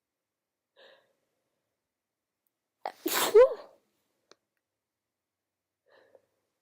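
A woman with a cold sneezes once, about three seconds in: a quick sharp onset, then a loud sneeze whose sound drops in pitch at the end.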